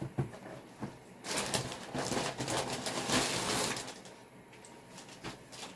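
Packaging rustling and crinkling as it is handled, with a dense stretch of crackling from about one to four seconds in and a few light clicks around it.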